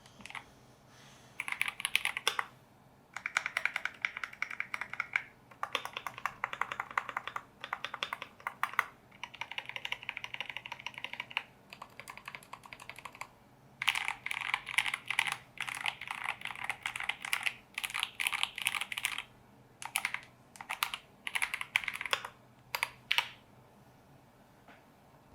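Typing on a mechanical keyboard with Gateron G Pro Brown tactile switches: rapid runs of key clicks a few seconds long, separated by brief pauses. It thins to scattered single keystrokes and stops near the end.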